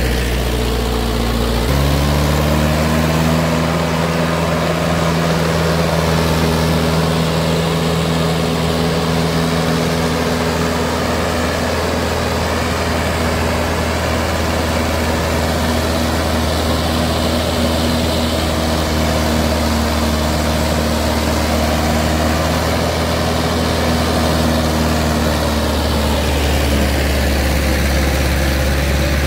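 Mahindra 575 DI tractor's four-cylinder diesel engine running steadily under load while driving a rotavator through the soil. The engine note steps up slightly about two seconds in, then holds steady.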